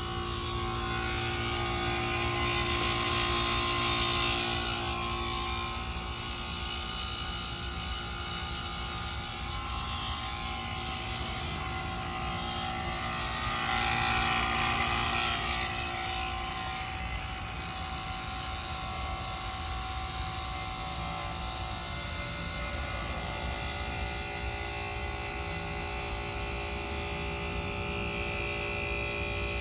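1993 Carrier Tech2000 1.5-ton heat pump running: a steady hum with several held tones over a low rumble. A rushing hiss swells twice, a few seconds in and again around the middle.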